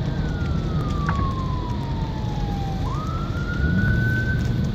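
Emergency vehicle siren wailing. A single tone falls slowly for nearly three seconds, then swings back up and holds high, over a steady low rumble from the big fire.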